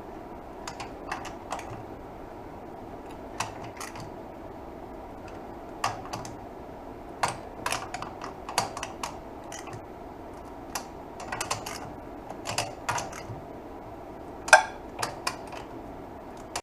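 Scattered sharp clicks and light metal taps from hand tools and parts being handled on a motorcycle engine during teardown, some coming in quick pairs, the loudest near the end.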